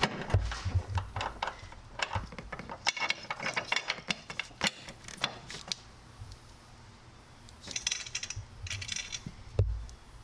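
Hand socket ratchet clicking in short runs while nuts and washers go onto strut tower bar mounting studs, with scattered metallic clinks of the hardware and a few low thumps.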